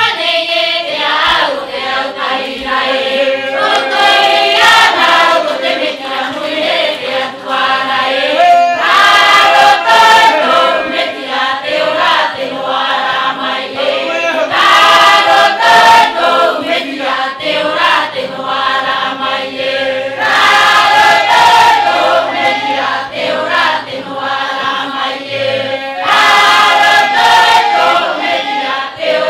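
A choir of men and women singing together with no instruments.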